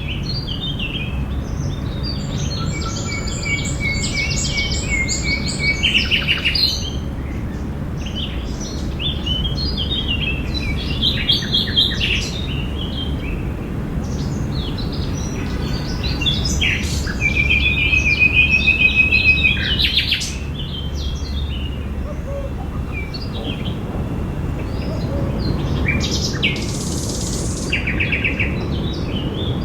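Several songbirds chirping and singing in short phrases and trills, one longer trill about two-thirds of the way through, over a steady low background rumble of park ambience.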